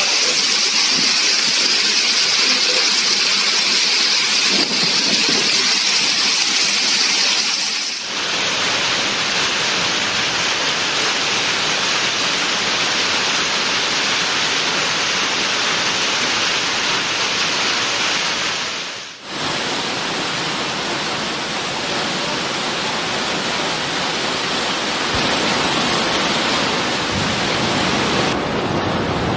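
Heavy downpour in a thunderstorm: a loud, steady rush of rain, which changes character abruptly twice, about 8 and 19 seconds in.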